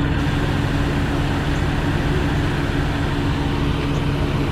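BMW engine idling steadily, just fitted with new coil packs to cure a misfire.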